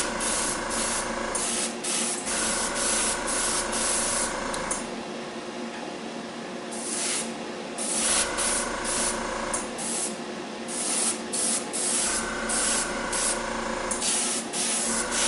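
Airbrush spraying paint in many short, quick bursts of hiss as the trigger is worked on and off, with a softer, steadier hiss for a couple of seconds around the middle. A steady motor hum runs underneath.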